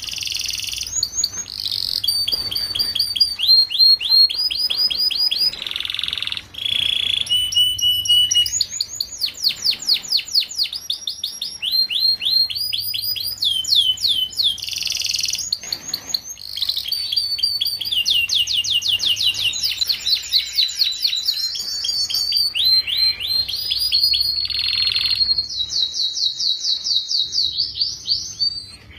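Domestic canary singing a long, fast song of rapid trills, switching to a different repeated note every second or two.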